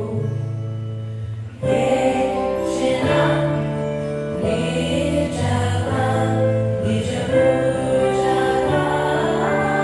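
A choir singing a song with instrumental accompaniment and sustained low notes underneath. The music thins out briefly about a second and a half in, then the next phrase comes in at full strength.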